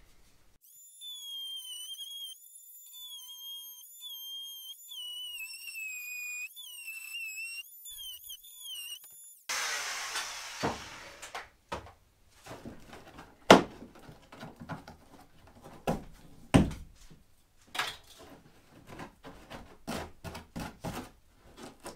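A high, wavering whistle-like tune for about the first nine seconds. Then a short hiss, followed by scattered knocks and clicks of workshop hand work, the sharpest two a few seconds apart in the second half.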